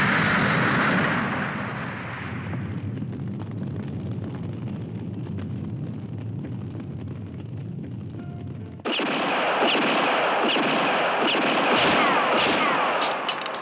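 Animated explosion sound effect: a loud blast that dies away into a long low rumble. About nine seconds in, a loud, dense noise cuts in suddenly and runs for about four seconds.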